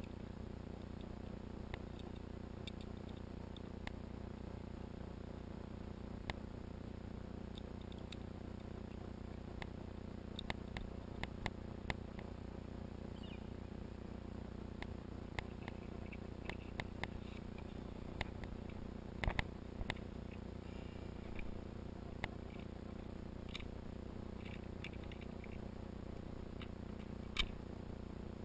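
Small irregular clicks of cartridges being handled and pressed into a pistol magazine, most of them in the middle stretch, over a steady low background hum.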